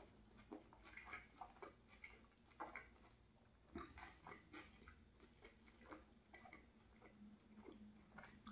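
Faint, close-up chewing of a tuna flatbread with the mouth closed: irregular soft wet clicks and smacks of the mouth and tongue.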